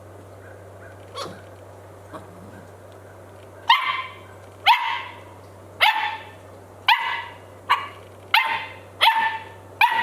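A puppy barking repeatedly, starting a few seconds in at about one bark a second. Each bark is short and high and drops in pitch.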